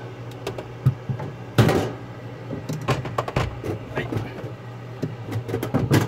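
Knocks, clicks and clatter as the rear cover panel of a refrigerator's freezer compartment, which hides the frosted evaporator, is worked loose and pulled out by hand. The loudest knock comes about one and a half seconds in. A steady low hum runs underneath.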